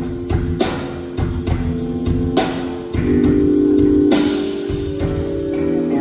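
Rock band playing live at a soundcheck: held chords over drum kit hits, getting louder about halfway through.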